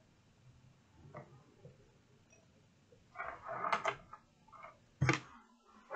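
Household handling noise: a few seconds of quiet, then a burst of rustling and clatter as objects are moved, with small taps and one sharp knock about five seconds in.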